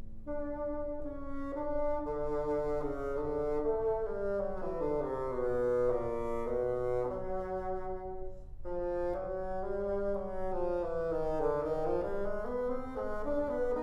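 Bassoon playing a legato melody that rises and falls, with piano accompaniment. There is a brief break in the line about eight and a half seconds in.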